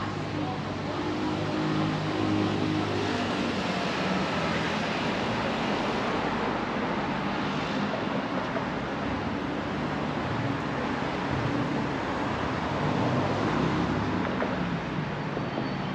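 Steady city street traffic noise from passing cars.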